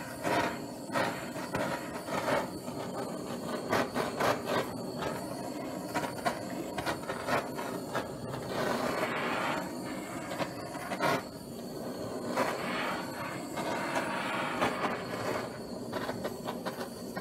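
Handheld canister gas torch hissing steadily while its flame scorches wood, with many small crackles from the glued-on paper as it burns.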